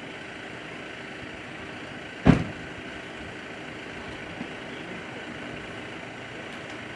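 A parked vehicle's engine idling steadily, with a single sharp thump about two seconds in.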